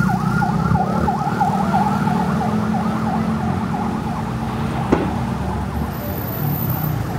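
Emergency-vehicle siren going in a fast rising-and-falling yelp, several cycles a second, fading as it moves away, over a low rumble of traffic.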